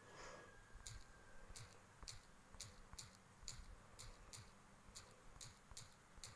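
Faint footsteps of a walker on a chip-seal road, a light crunching tick with a soft thud about twice a second at a steady walking pace.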